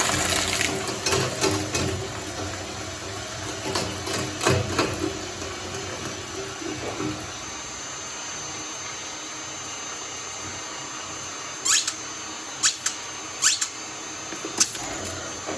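Shredder running and crunching through slime, with a steady machine hum and irregular crunches; the hum stops about seven seconds in. A steady hiss follows, with four sharp clicks near the end.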